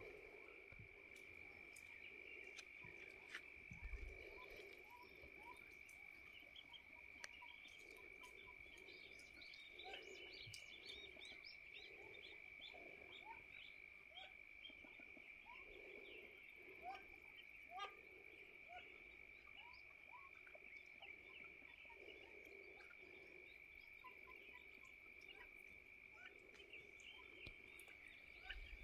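Faint frog chorus: low croaks repeating about once a second over a steady high ringing tone, with scattered short chirps.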